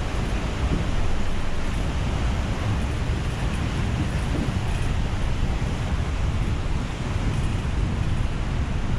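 Steady rushing noise of a swollen, flooding river with a deep rumble, mixed with wind buffeting the microphone.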